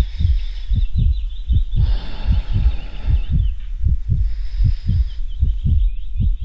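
Heartbeat sound effect: a fast, steady run of low double thumps. A thin, warbling high tone runs above it, and a rush of hiss comes in about two seconds in.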